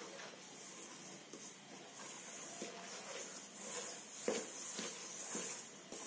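Metal spoon scraping and clinking against a stainless steel bowl while stirring a dry, crumbly flour mixture into dough, with repeated scraping strokes and a sharper knock a little past the middle.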